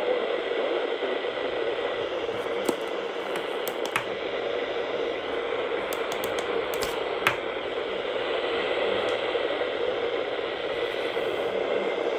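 Radio receiver static: a steady hiss with a few scattered sharp clicks and crackles, the sound of a weak or empty radio signal.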